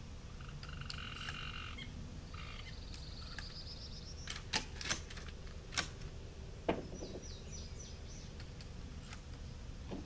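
Outdoor wildlife calls: a steady buzzy call about a second long, then a rising run of high notes, and later a quick series of high chirps. Four or five sharp clicks come in the middle, the last one the loudest.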